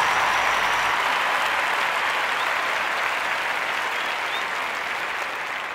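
Crowd applause, a dense steady clapping that slowly fades out.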